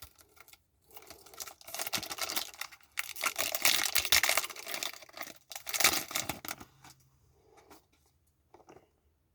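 Magic: The Gathering booster pack wrapper being torn open and crinkled, in several rustling bursts over about six seconds, then quiet.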